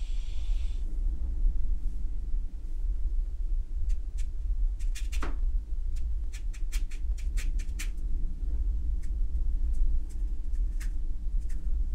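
Steady low rumble. In the middle of it comes a run of short, sharp ticks, about four a second, from a paintbrush dabbing and scratching on watercolour paper.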